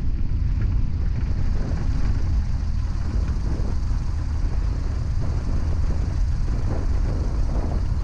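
Single-engine light aircraft rolling out slowly on a sandy dirt airstrip after landing, its engine running at low power under a steady low rumble of wind and rough ground.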